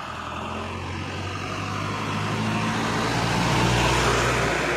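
A truck driving past close by. Its engine hum and road noise grow louder to a peak near the end of the pass, then start to fade.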